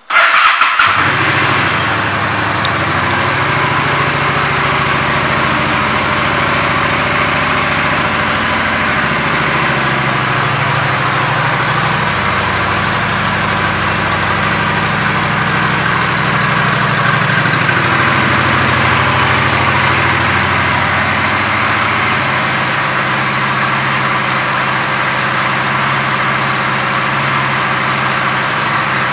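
Honda Shadow Phantom's 745 cc V-twin starting and then idling steadily. The sound comes in suddenly at the start with a brief louder burst, and the idle note wavers briefly about ten seconds in before settling.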